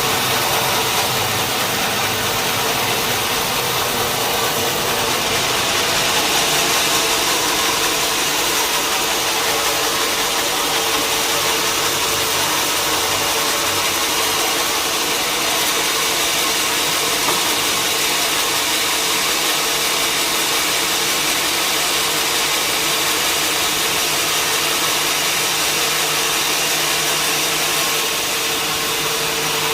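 Sawmill machinery running steadily: a constant loud mechanical noise with a steady hum, with no breaks or single impacts.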